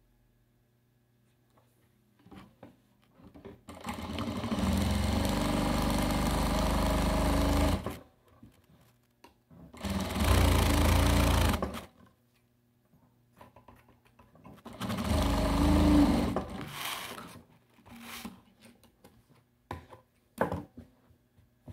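Household electric sewing machine stitching fabric scraps together, running in three spells (about four seconds, then two, then two) with short pauses between, and small handling clicks in the gaps.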